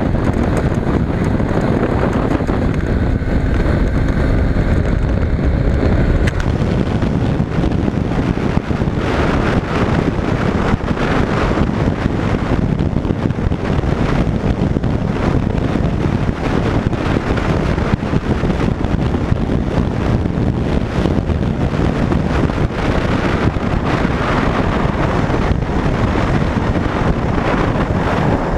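Heavy wind noise on the microphone over a 200 cc single-cylinder motorcycle engine running steadily at speed, around 70 km/h.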